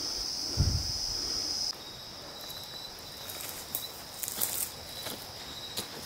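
Insects droning in one steady high note, with a dull thump less than a second in. About two seconds in the drone cuts off abruptly, leaving a fainter thin insect note and scattered crunching footsteps on a dry, leafy forest trail.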